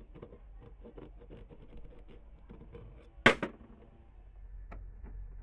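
Small clicks and scrapes of a jeweller's steel hand tool working against a gold bangle, with one sharp metallic knock a little past halfway.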